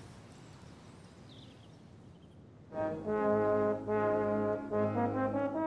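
Faint background hiss, then about three seconds in, brass-led background music starts with held chords.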